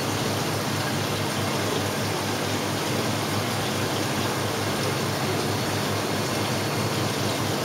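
Steady rushing, splashing noise of an aquarium's filter and aeration, with a low hum underneath.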